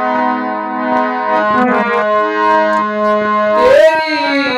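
Harmonium played: sustained reedy notes and chords, moving to new notes every second or so. A man's voice comes in singing near the end, over the harmonium.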